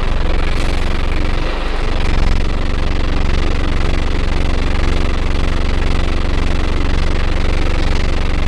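Scania N310UA bus engine heard from inside the passenger cabin, running steadily with a deep low drone and level pitch.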